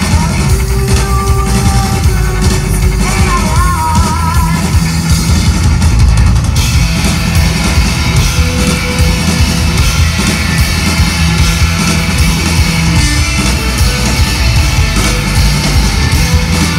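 A rock band playing live, with electric guitars, bass and a drum kit, loud, heard from within the crowd. About six seconds in, the sound grows fuller and brighter.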